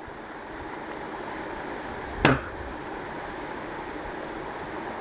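A fishing rod swishing through the air in a single quick cast about two seconds in, over a steady rushing hiss.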